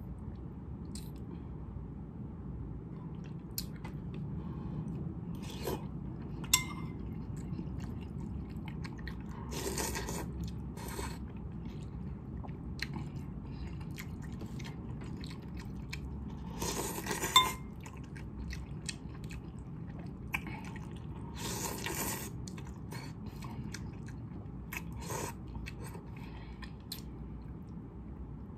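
Chewing and biting on instant noodles and boiled eggs, with a metal spoon clicking and scraping against the bowl. Two sharp clinks stand out, one about six seconds in and one a little past halfway.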